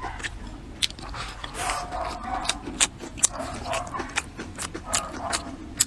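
Close-up eating sounds: wet chewing and slurping of food, with many short, sharp clicks scattered throughout.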